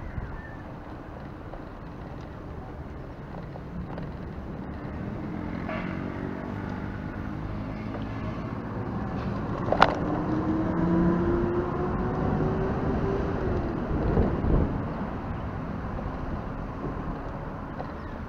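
Motor traffic heard from a moving bicycle over a steady rumble of road and wind noise; a passing vehicle's engine note rises slowly in pitch from about the middle, and a single sharp click comes just before it.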